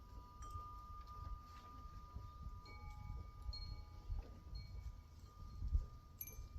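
Wind chimes ringing faintly, several clear tones that sound and hang on, new ones struck every second or so, over a low rumble.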